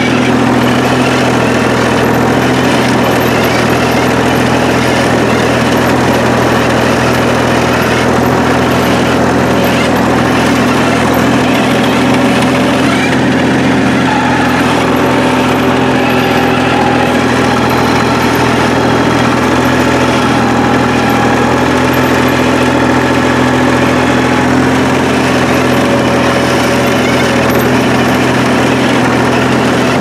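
John Deere 350 crawler dozer's engine running steadily as the dozer is driven, a constant drone with no break.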